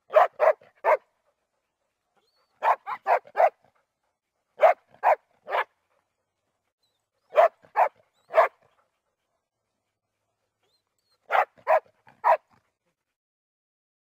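Weimaraner barking in five quick bursts of three or four short barks each, with pauses of one to three seconds between the bursts.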